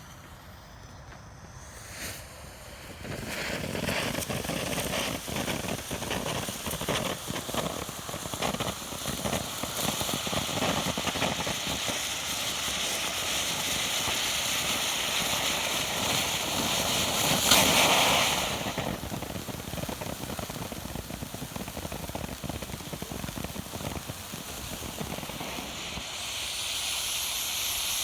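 Winda Silent Mode fountain firework spraying: a steady hiss with dense rapid crackling that starts about three seconds in. It surges briefly to its loudest a little past halfway, then settles to a more even hiss.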